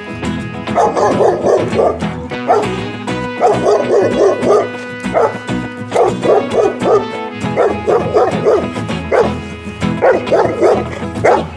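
A dog barking over background music, the barks coming in quick runs of short calls again and again.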